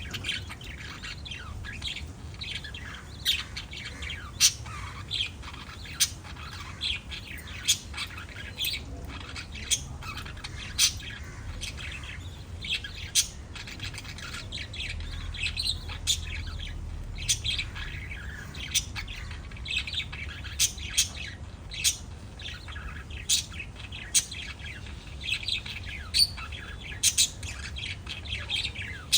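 Several small pet parrots chirping and squawking together, with many short, sharp calls coming irregularly over a steady low hum.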